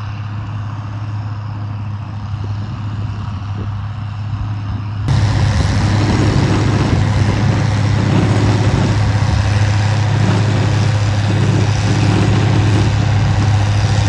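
Tractor diesel engine running steadily under load with a steady low hum, driving a manure spreader. About five seconds in the sound becomes suddenly louder and brighter, with more rattle and rushing noise from the spreader.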